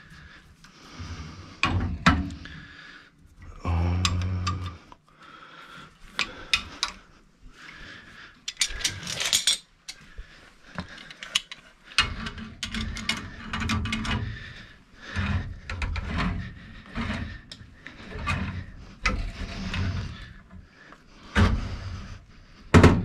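Hand tools and metal fittings clicking, clanking and scraping during work on a furnace gas valve, with a loud sharp knock just before the end.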